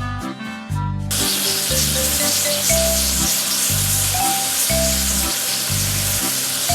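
Cartoon water-spray sound effect, an even hiss of water jetting onto the vehicle as it is washed. It starts about a second in, over background music with a steady bass beat.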